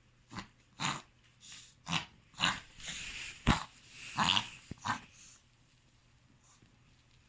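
Long-coat Chihuahua reverse sneezing: a run of quick, rasping gasped inhalations, about two a second, that stops after some five seconds. The sound comes from a spasm of the dog's soft palate and throat.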